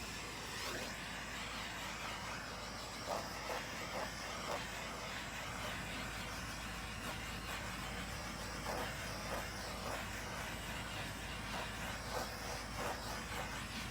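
Handheld butane torch flame hissing steadily over wet acrylic pouring paint, used to pop air bubbles in the paint.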